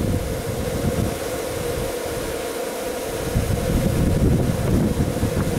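Wind buffeting the camera's microphone: an uneven low rumble that eases off for a couple of seconds partway through and then picks up again, over a steady faint hum.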